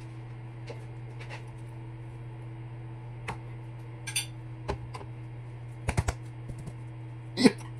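Light clicks and knocks of food and containers being handled on a kitchen counter, scattered irregularly with the loudest near the end, over a steady low hum.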